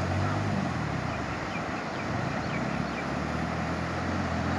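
A motor vehicle's engine running steadily, a low even hum under a constant rushing noise, with a few faint high chirps in the middle.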